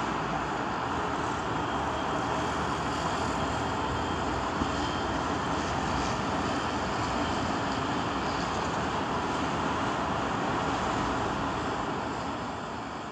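A steady rushing noise with no distinct events, fading out near the end.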